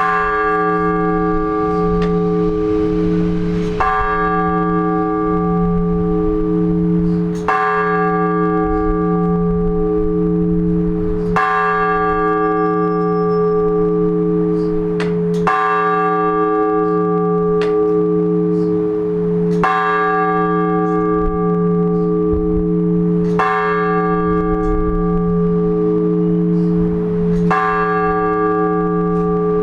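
One large Orthodox church bell tolled in even, measured strokes about every four seconds, eight strikes in all. Each stroke rings out over the long hum of the one before, with the low tones beating as they die away. This is the single-bell blagovest that calls people to a church service.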